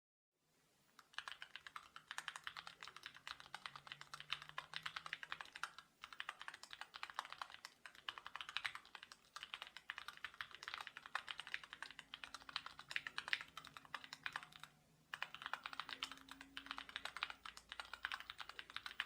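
Fast typing on an ergohaven K:03 mechanical keyboard with Outemu GTMX Red linear switches: a rapid run of key clacks in bursts with short pauses, starting about a second in.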